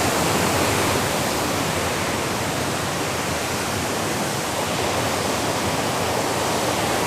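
Waterfall: a large volume of water pouring hard over rocks, a steady, loud rushing.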